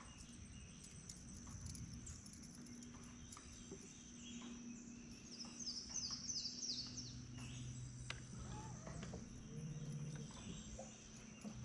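Outdoor waterside ambience: a steady high-pitched insect drone, with a bird's quick descending run of chirps about six seconds in and a low steady hum through the second half.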